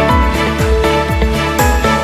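Background music with a steady beat and falling synth bass notes.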